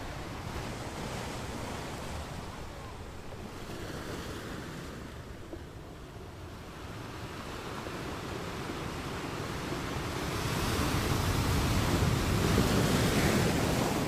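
Ocean waves washing onto a shore: a steady rush of surf that swells slowly, building through the last third and peaking just before the end, then easing off.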